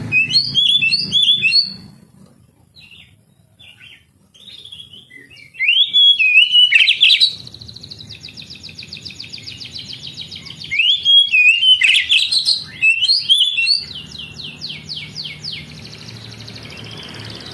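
Oriental magpie-robin (kacer) singing loud, varied whistled phrases that swoop up and down, broken by long, fast, buzzy trills, with a brief lull after the opening phrases.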